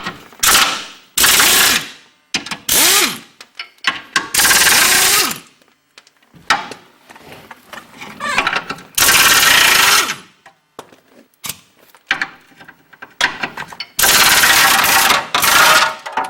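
Impact wrench run in about six short bursts of a second or so each, with pauses between, undoing the bolts that hold the car's front cross member.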